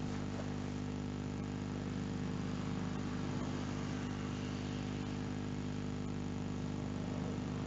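Steady low electrical hum made of several even tones, with a constant hiss behind it and nothing else happening.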